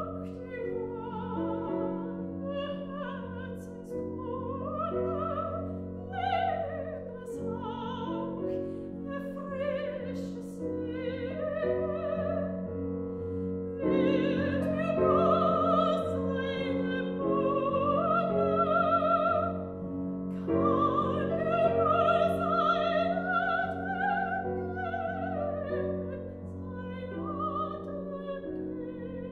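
Soprano singing a German art song with vibrato, accompanied on grand piano. The voice swells louder about halfway through, then eases back a few seconds before the end.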